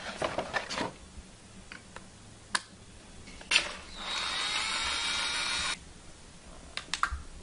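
Cordless drill running for about two seconds, spinning a beer can in ice, its motor whine rising slightly before it cuts off suddenly. Handling clicks and knocks come before and after it.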